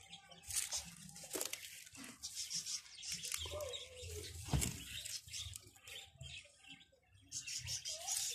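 Leaves and stems rustling and crackling as a cat pushes through a leafy garden bed, with faint chirps.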